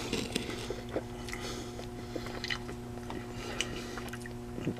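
A person chewing a mouthful of breakfast burrito, with small wet mouth clicks scattered throughout, over a steady low electrical hum.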